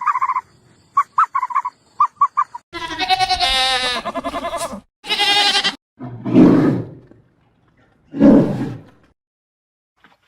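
A run of animal calls: a few short chirps, then a long wavering call, a short higher call, and two low, rough calls a couple of seconds apart.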